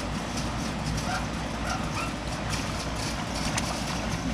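A dog whimpering in short rising whines, repeated every half second or so, over light splashing of hands in a plastic water table and a steady low rumble.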